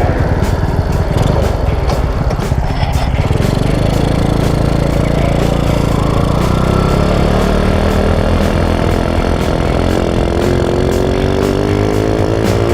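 Honda Wave 125 motorcycle's single-cylinder engine running, its pitch rising steadily over the last few seconds as it revs up.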